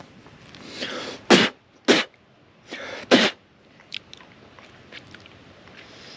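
A person's three sharp, explosive bursts of breath, about a second in, two seconds in and three seconds in. The first and third each come after a drawn-in breath, as in sneezing or coughing.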